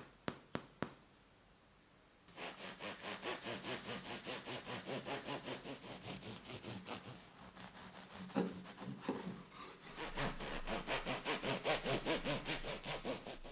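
A finger taps the crust of a baked white loaf four times, giving quick crisp clicks. Then a bread knife saws through the loaf in quick, even back-and-forth strokes, about four or five a second, with a brief easing before the sawing picks up again.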